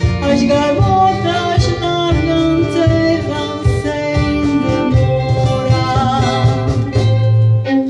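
Live acoustic band music, an instrumental passage with guitar prominent over sustained melody notes and a bass line.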